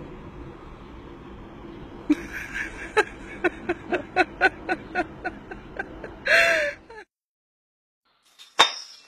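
A puppy yipping: a quick run of short, high yips, about three or four a second, then one longer, louder yelp, over steady background noise. The sound cuts off abruptly near the end.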